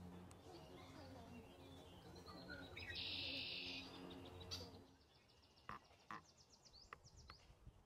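Faint outdoor ambience with distant bird calls over a steady low hum. About three seconds in there is a dry buzz lasting about a second, and near the end a faint, fast, high trill and a few light ticks.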